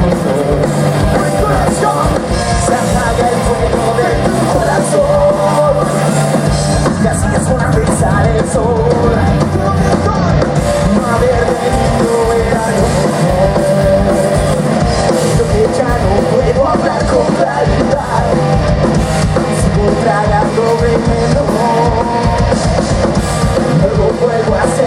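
Loud live rock band playing, with a drum kit driving a steady beat.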